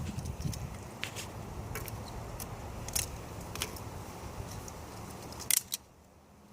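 A flip phone being smashed: a few scattered sharp clicks and knocks of the plastic handset being struck and breaking, over a steady low background rumble. The sound drops away near the end.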